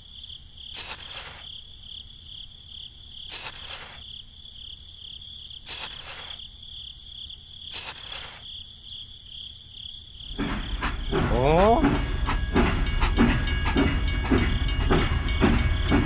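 Steady high chirring of crickets, crossed by four short bursts of hiss about two and a half seconds apart. About ten seconds in, a louder low rumble with rattling clicks and a brief rising tone takes over.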